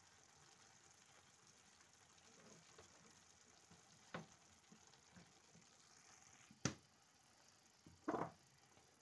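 Faint sizzling of a chickpea and potato stew simmering in a pan, broken by a few sharp clicks: one about four seconds in, a louder one near seven seconds, and a short clatter near the end.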